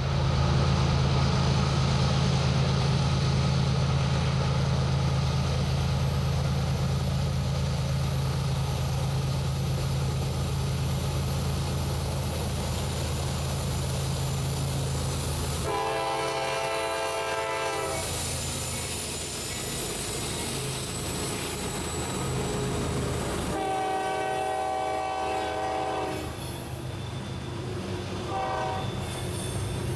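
CSX freight train passing behind GE diesel locomotives, their engines running with a steady low drone. The locomotive horn sounds a long blast about halfway through, another about eight seconds later, and short blasts near the end, when a high wheel squeal begins.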